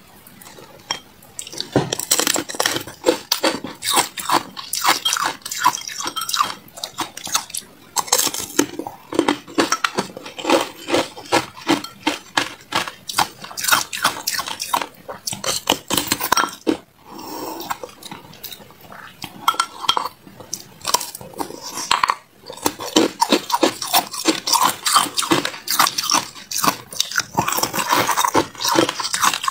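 Chunks of carbonated ice clinking and knocking against a glass bowl as they are turned in matcha powder: a rapid, irregular string of clicks, pausing briefly twice.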